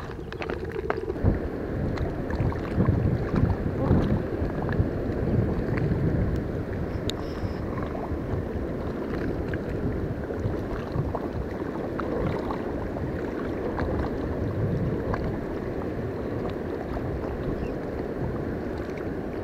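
Wind buffeting the microphone: a steady low rumble that rises and falls, with a few light clicks in the first couple of seconds.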